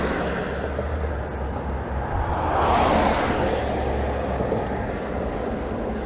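Cars crossing a road bridge overhead: tyre and engine noise swelling to its loudest about three seconds in and then fading, over a steady low rumble.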